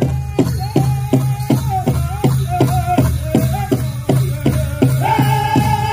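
Powwow drum group: a large drum struck in a steady beat, about three beats a second, under men singing in a high register; about five seconds in, a higher voice comes in louder and holds a long note.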